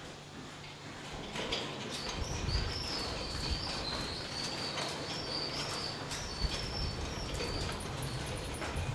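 Dairy barn ambience: Holstein cows milling and shuffling on concrete in a holding yard, with low knocks and rumbles. A high, wavering bird twitter runs from about a second and a half in until about seven seconds.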